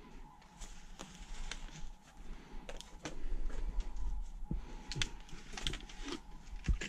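Irregular light clicks and knocks of hard plastic seed trays and the camera being handled, with a low rumble of handling noise in the middle.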